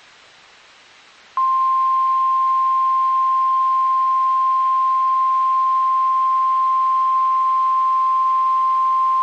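NOAA Weather Radio 1050 Hz warning alarm tone from a weather radio receiver: one steady unbroken tone that starts about a second and a half in, over faint radio hiss. Here it sounds for the station's weekly test of the tone and SAME alert systems.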